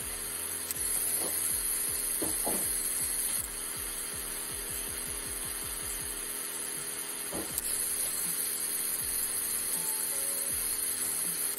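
Small yellow plastic DC gear motor running, with a steady high whir from its motor and gearbox. It gets quieter about three and a half seconds in, then louder again with a click near the eight-second mark.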